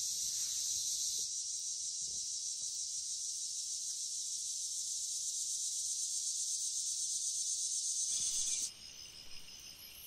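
Dense chorus of insects, a steady shrill buzz that cuts off suddenly near the end, leaving fainter chirps repeated at an even pace.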